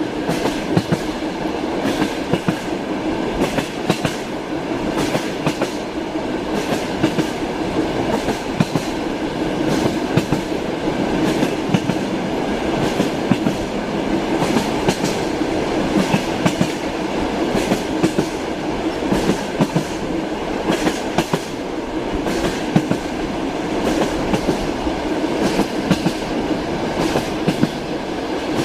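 Train wheels clattering over rail joints as the carriage runs along at speed: a steady rolling rumble with sharp clicks repeating throughout.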